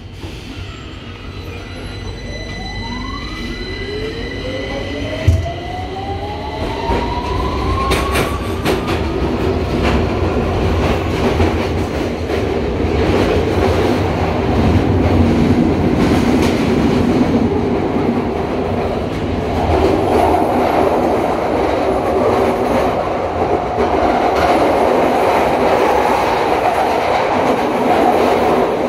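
London Underground Victoria line 2009 Stock train pulling away from the platform, heard from inside the carriage: the electric traction motors whine upward in pitch as it accelerates, with a single knock about five seconds in. The wheel and rail noise grows louder and then runs on steadily as the train travels at speed through the tunnel.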